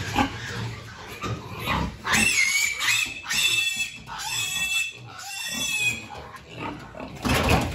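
Piglets squealing as they are caught and held: a run of about four loud, high squeals starting about two seconds in, followed by a brief scuffling noise near the end.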